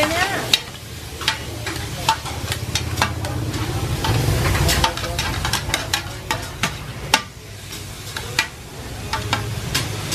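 Sliced beef and onions sizzling in a large shallow pan as they are stir-fried, with a metal spatula and ladle scraping and clacking against the pan in quick, irregular strokes.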